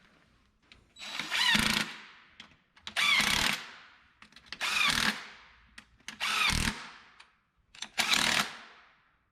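Power tool running in bolts in five short bursts about a second and a half apart, each with a whine that climbs in pitch.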